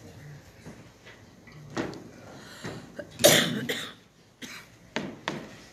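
Microphones and a mic stand being handled and set up: a series of sharp knocks and thumps through the PA, with one louder, harsh burst a little past three seconds in.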